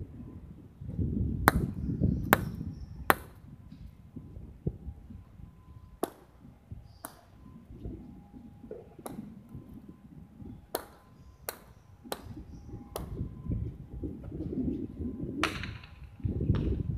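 About a dozen sharp knocks at irregular intervals, with a low rumble between them; the loudest come in a quick run of three about a second and a half in.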